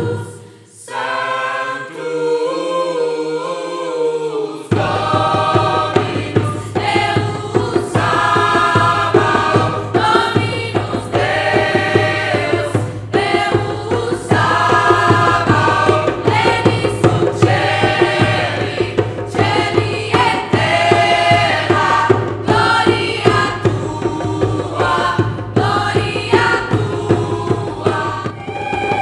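Music: a group of voices singing together. About five seconds in, a driving drum beat with a steady bass comes in under the voices and carries on.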